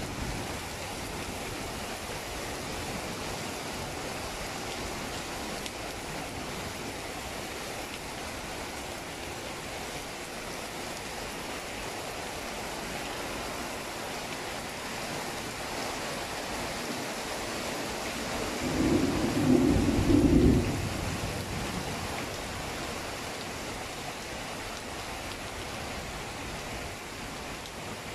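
Rain falling steadily. A low rumble of thunder swells up about two-thirds of the way through and lasts about two seconds.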